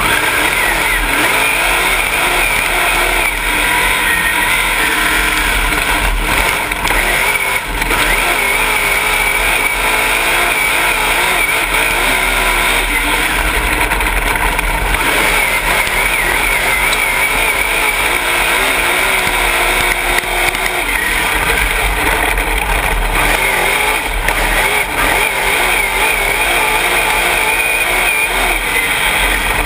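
Dirt late model race car's V8 engine heard from inside the cockpit, running loud and steady with its pitch rising and falling as the car goes around the dirt track.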